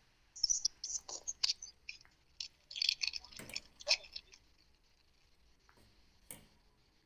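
Metal ladle stirring a steel pot of chicken-and-potato soup: a quick run of scrapes, clinks and sloshes for the first four seconds or so, then one sharp knock a little after six seconds.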